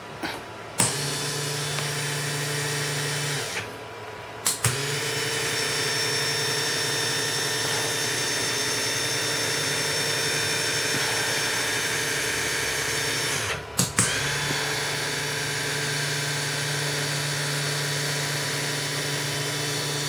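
Linear actuator's electric motor and gear drive whining steadily as it runs, in three stretches: it stops briefly after about three seconds and again about fourteen seconds in, with a sharp click each time it starts again.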